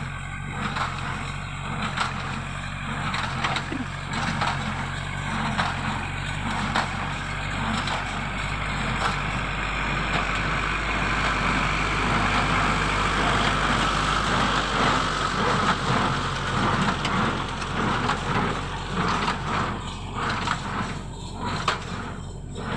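Tractor engine running steadily under load while pulling a square hay baler through rice straw, with the baler's mechanism knocking repeatedly over the engine noise.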